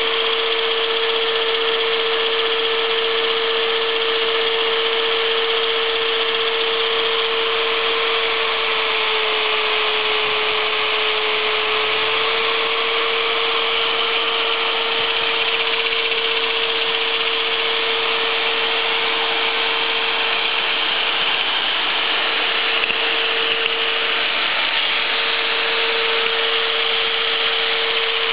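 Angle grinder and an old electric drill running together steadily, the grinder working a weld on a steel shaft spun by the drill through rubber bands on a homemade lathe. A steady whine whose pitch sags slightly for a few seconds about ten seconds in.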